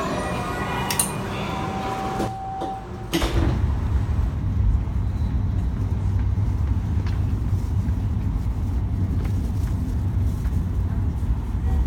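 Shinkansen running noise heard from inside the cabin: a steady low rumble that begins abruptly about three seconds in and holds at an even level. Fading steady tones come before it.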